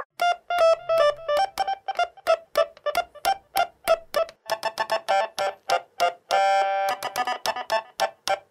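Stylophone GEN X-1 pocket analogue synthesizer played with its stylus: a quick run of short, separate notes that gets faster after about four seconds, with one note held briefly about six seconds in.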